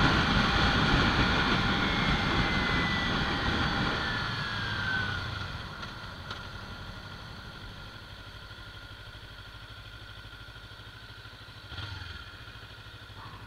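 Kawasaki Ninja 300 parallel-twin motorcycle on the move with wind rush. Its engine note falls in pitch as the bike slows over the first five seconds, then drops to a quieter, steady idle as it comes up to a stop.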